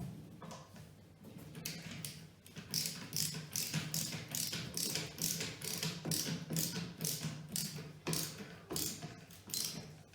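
Hand screwdriver ratcheting as a screw is driven into a flat-pack drawer, a steady run of clicks a little over two a second.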